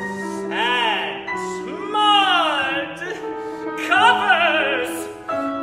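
A tenor singing an operatic aria with grand piano accompaniment: three short phrases whose pitch slides up and down, with vibrato, over held piano notes.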